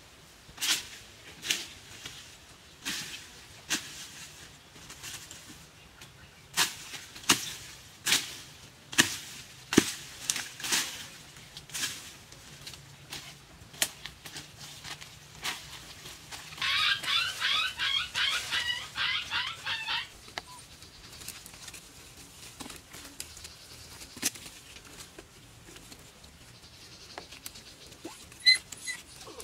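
Footsteps crunching through dry leaves and twigs on the forest floor, a string of sharp irregular snaps and cracks. In the middle, a few seconds of rapid high chirping, and near the end two short high squeaks.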